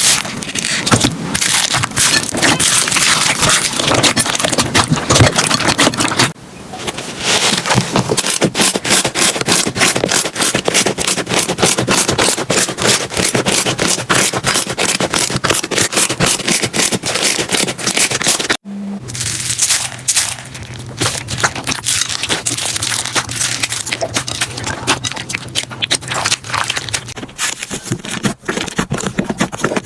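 Slime being squeezed, poked and stretched by hand, making a dense run of wet crackles and pops. The sound breaks off abruptly about six seconds in and again near nineteen seconds, each time starting afresh with another handful.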